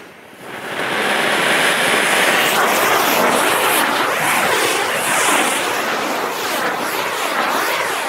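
Anaar (Diwali flowerpot fountain firecrackers) fixed to a ceiling fan's blades spraying sparks with a loud rushing hiss. The hiss starts about half a second in and holds steady, wavering up and down.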